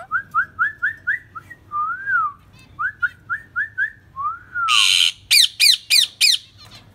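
Pet parrot whistling: a quick run of short rising whistled notes and two longer rise-and-fall whistles, then a harsh screech and five quick falling squawks near the end.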